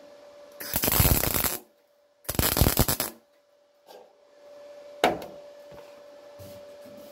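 MIG welder laying two short crackling tack welds, each about a second long, on the seam of a steel car front wing. A single sharp knock follows about five seconds in, over a faint steady hum.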